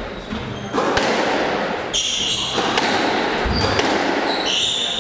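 Squash rally: several sharp cracks of the ball off rackets and the court walls, with shoes squeaking on the wooden court floor around the middle and near the end, and a low thud of a lunge about three and a half seconds in.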